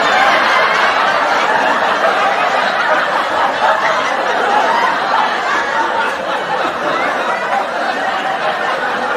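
Sitcom studio audience laughing together, a steady crowd laugh.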